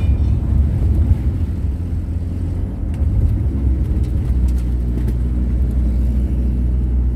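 Kombi camper van driving on the road, heard from inside: a steady low engine and road rumble, with the engine note shifting about four seconds in.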